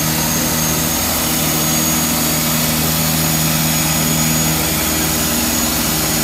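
Diesel race car engine idling steadily: an even low hum with a thin, steady high whine above it.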